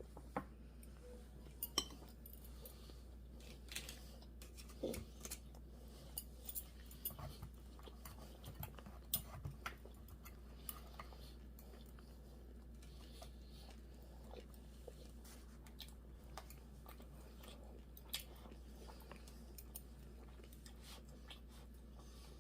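Close-up chewing and biting of food, with scattered sharp crunches and mouth clicks, frequent in the first half and sparser later.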